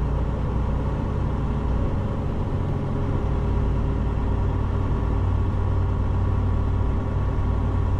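Semi truck's diesel engine running steadily as the tractor rolls slowly across a gravel yard, heard from inside the cab as an even low rumble.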